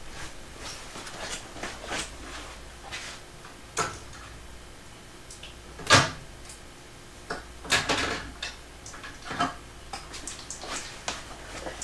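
Scattered knocks and clicks of objects being handled in a small room, the loudest about six seconds in and a few more close together around eight seconds.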